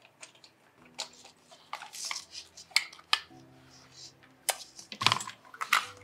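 Handling noise from a Voigtländer Vito CL camera being taken out of its leather ever-ready case: rustling and scraping with irregular sharp clicks of metal fittings, loudest in a cluster near the end.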